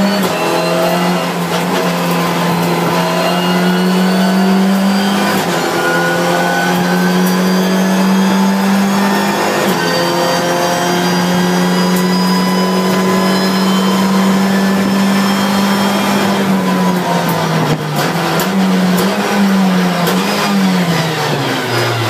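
Nissan Tiida 1.6T race car's engine, heard from inside the cabin, accelerating hard through the gears with upshifts about 5 and 10 seconds in. Near the end it comes off the throttle and the pitch drops and wavers as it brakes and downshifts for a corner.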